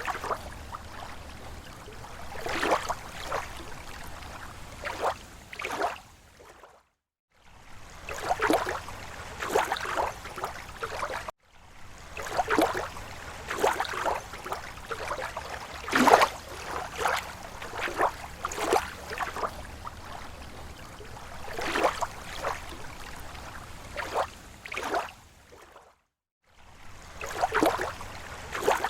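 Small waves lapping at a lake shore: irregular soft slaps and splashes of water every second or so over a low steady wash, broken by brief gaps of silence about seven, eleven and twenty-six seconds in.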